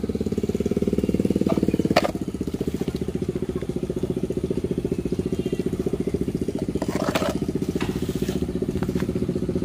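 A small engine idling steadily with a fast, even pulse. A single sharp knock about two seconds in.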